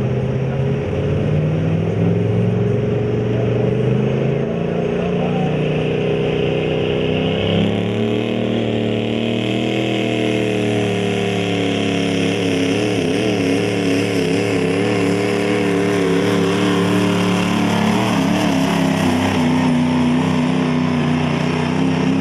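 Diesel pickup truck engine running flat out under heavy load as the truck drags a weight-transfer pulling sled. The engine note climbs slowly, then wavers up and down for several seconds before holding steady near the end.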